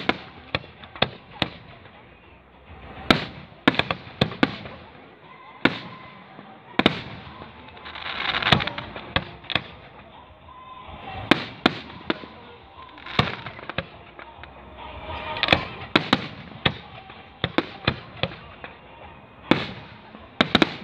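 Fireworks display: aerial shells bursting in a steady run of sharp bangs, often less than a second apart, with noisier stretches of crackle between some of them.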